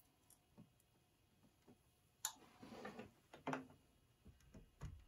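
Faint, scattered clicks, scrapes and a low knock of white PVC pipe and a T fitting being handled and pushed together.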